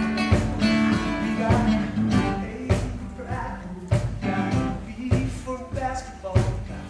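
GigBox played live: guitar strings strummed over a steady percussive beat struck on the instrument, with a man singing along.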